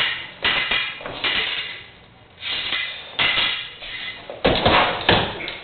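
Stage-combat rapier blades clashing in a quick series of sharp, ringing strikes, about one every half second to a second, with a heavier flurry of strikes near the end.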